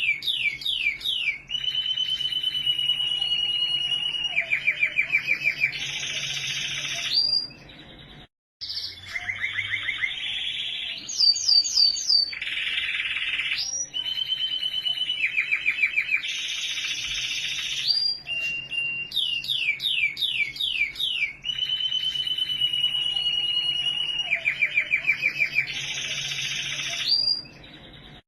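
A domestic canary singing a long, varied song. It repeats a cycle of phrases: quick downward-sweeping notes, long even trills, fast rolls and a rising whistle. There is a brief break about eight seconds in.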